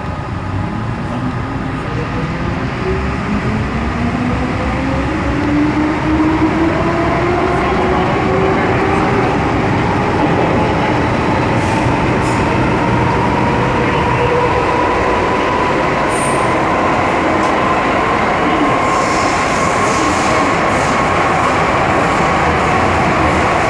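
MTR M-Train metro car running in the tunnel, its traction motor whine rising in pitch as the train picks up speed, then holding steady at cruising speed, over the rumble of the wheels on the rails.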